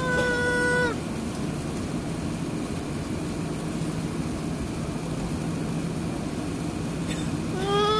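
Steady drone of an Airbus A380's engines heard from inside the passenger cabin. A baby cries over it: one loud wail in the first second, and another beginning near the end.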